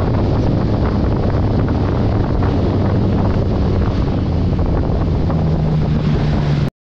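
Motorcycle riding at road speed: heavy wind buffeting on the microphone over a steady engine hum. It cuts off suddenly near the end.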